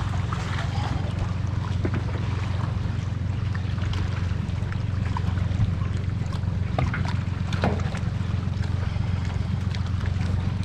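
Boat motor running slowly in gear with a steady low hum, with faint splashes and clicks as a trotline is hauled in by hand.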